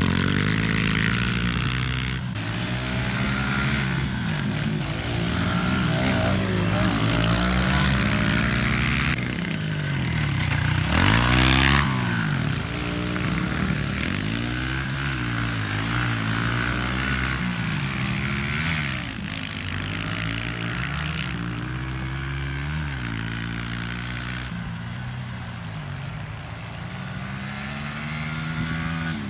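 Pit bike engine revving up and dropping back again and again as the bike is ridden hard round a dirt track, the pitch climbing through each gear and falling off into the corners. It passes close early on and grows quieter in the second half as the bike moves away across the field.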